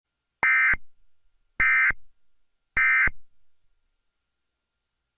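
Emergency Alert System end-of-message signal: three short bursts of SAME digital data tones, each about a third of a second long and a little over a second apart. It marks the close of the alert.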